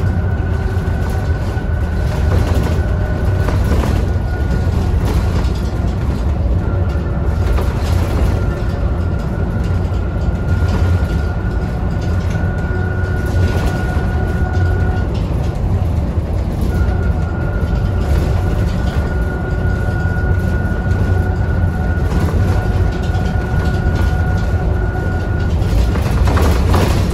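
Isuzu Erga city bus under way: a steady low diesel engine rumble with a thin high whine over it. The whine drops out for about a second and a half a little past halfway, then returns.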